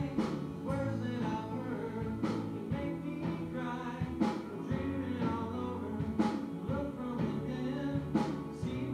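Live rock band playing with electric guitars, bass and drums, with a strong beat accent about every two seconds.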